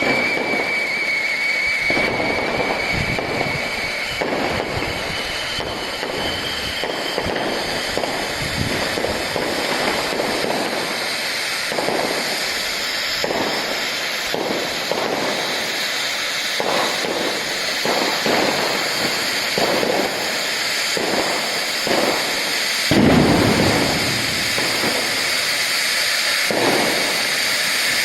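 Consumer firework batteries firing a string of shots over continuous crackling. Near the start a whistle falls slightly in pitch and fades, and about 23 seconds in comes one louder, deeper boom.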